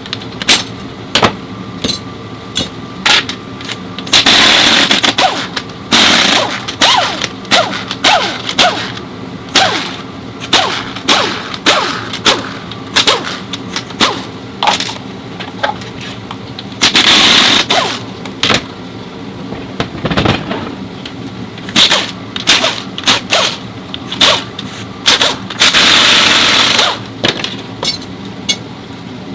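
Impact wrench run in three bursts of a second or two, loosening bolts as the transmission is removed, among many sharp clinks and knocks of hand tools and metal parts.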